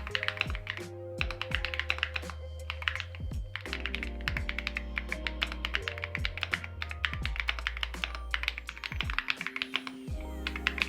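Fast typing on a Keychron Q1 Max mechanical keyboard with Gateron Jupiter Banana tactile switches: a quick run of keystroke clacks with a few brief pauses. Background music plays under it.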